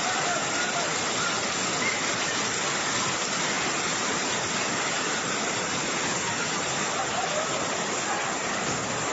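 Torrential rain pouring down in a steady, loud hiss of falling and splashing water.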